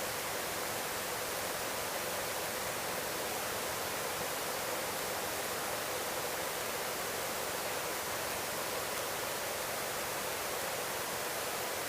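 Helicopter cabin noise heard through the headset intercom as a steady, even hiss with almost no low rumble, while the helicopter is manoeuvred into its parking spot.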